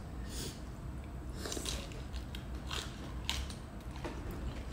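Eating sounds: irregular crackles and crunches as large cooked tiger prawns in curry are peeled by hand and bitten into, with chewing.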